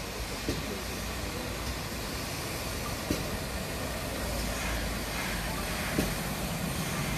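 Steam locomotive approaching along the line: a low rumble that grows slightly louder, with a few sharp clicks.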